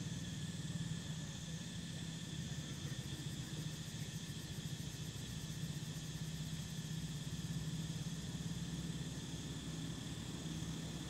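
A steady low mechanical hum, like a motor running, with faint steady high-pitched tones above it and no change in level.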